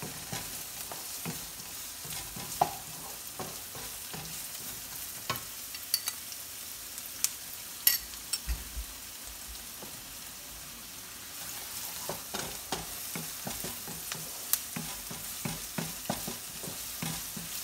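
Chopped red onion with garlic and ginger sizzling in hot oil in a nonstick frying pan, stirred with a wooden spatula that scrapes and taps against the pan now and then. The stirring gets busier about two-thirds of the way through.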